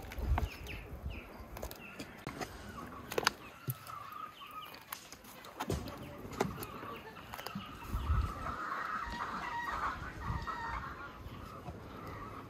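Farmyard chickens clucking and a rooster crowing, with a few sharp plops as raw khinkali dumplings are dropped into a pot of steaming water.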